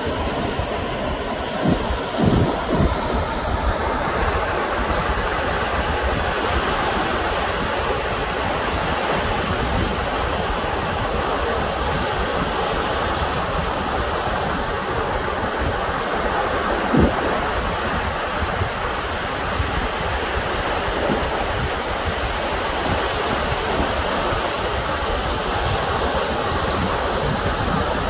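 Steady rush of surf with wind on the microphone, broken by a few brief low thumps about two seconds in and again a little past halfway.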